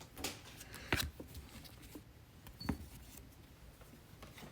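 Trading cards and packs being handled: a few short, soft clicks and taps, the sharpest about a second in.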